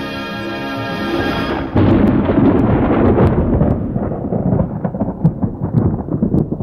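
Orchestral music with brass, cut off about two seconds in by a sudden loud, low rumble with scattered crackles that slowly dies away.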